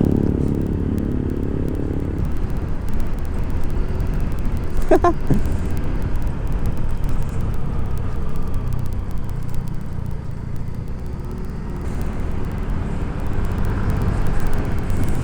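Yamaha Mio i 125 scooter running steadily at cruising speed, its engine rumble mixed with wind and road noise on the rider's microphone.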